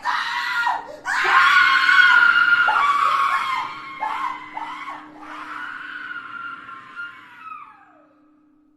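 A long, high-pitched scream. It starts after a short cry, wavers, slowly fades, and drops in pitch as it dies away. A faint steady low drone sounds underneath.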